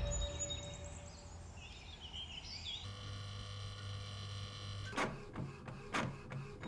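Quiet room ambience: a steady low hum sets in about three seconds in and stops around five seconds, followed by a run of five or six short sharp clicks.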